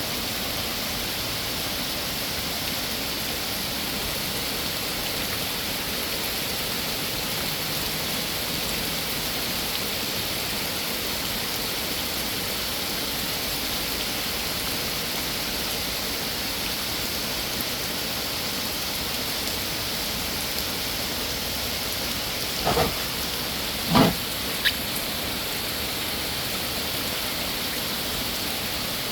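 Steady heavy rain falling, an even hiss that does not let up. Two short sharp knocks come close together near the end.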